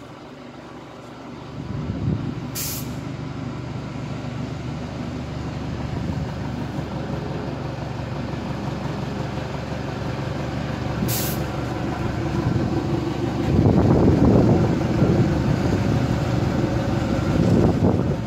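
Small narrow-gauge locomotive running slowly along the track and drawing up alongside a coach. Its engine hum starts about a second and a half in and grows louder as it comes close, loudest near the end. Two short, sharp hisses cut in, one early and one about eleven seconds in.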